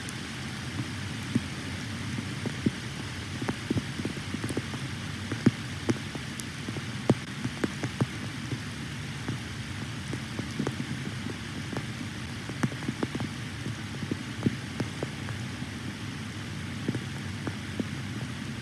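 Steady rain, with sharp, irregular ticks of drops over an even low rumble.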